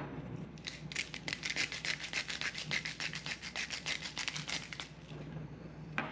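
Rapid rhythmic scraping strokes, about eight a second, that stop about five seconds in, followed by a single sharp knock near the end.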